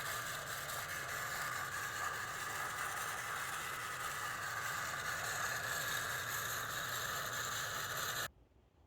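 Rebuilt band saw running under power for the first time, its electric motor and blade giving a steady whir with a low hum. The sound stops abruptly near the end.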